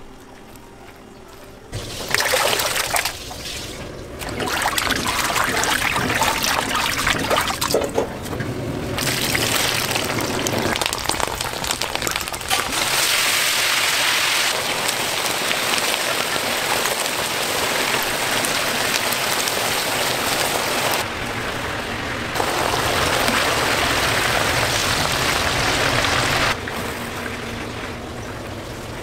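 Hot oil sizzling and bubbling in a large wok as food deep-fries, a dense steady hiss. It comes in several takes that start and stop abruptly, loudest through the middle.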